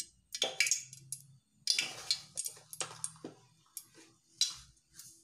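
Cooking oil crackling and popping in a metal pot as it heats for a tempering, with irregular sharp pops a few times a second.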